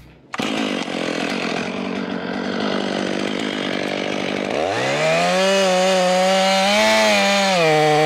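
Chainsaw running at high throttle, cutting into a log. It starts suddenly just after the beginning, and about halfway in its pitch rises and then holds high and steady with a slight waver.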